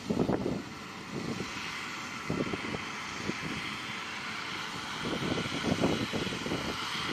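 Rice combine harvester running steadily as it cuts and threshes standing rice, a continuous machine hum with irregular low rumbling swells, strongest just after the start and again about five seconds in.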